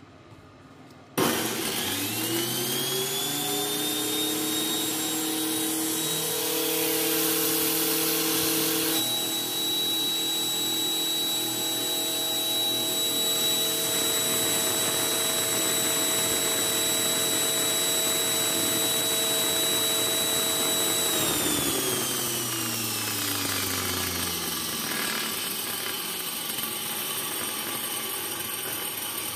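An angle grinder mounted under a table as a makeshift table saw is switched on about a second in. Its whine rises as the saw blade spins up, then holds steady at full speed, running free without cutting. Near the end it is switched off and winds down, the pitch falling as the blade coasts to a stop.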